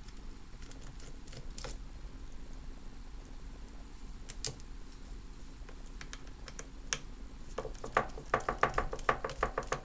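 Small metal clicks and taps of a screwdriver working the screws out of a GTX 590 graphics card's back plate. A few scattered clicks come first, then a quick run of about eight clicks a second near the end.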